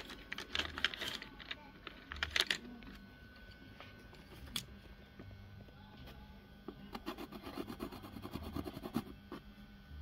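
Light taps and scrapes of painting work, clustered in the first second and again a little after two seconds. A quick run of small ticks follows from about seven to nine seconds, over a low steady hum.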